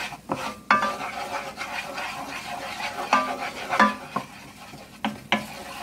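Wooden spoon stirring flour into melted butter in a nonstick pot, making a roux: the spoon scrapes over the bottom and knocks against the pot several times.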